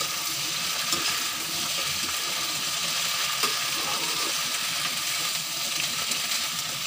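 Chopped okra sizzling in hot mustard oil in a metal kadhai while a perforated metal spatula stirs it, scraping and clicking against the pan now and then.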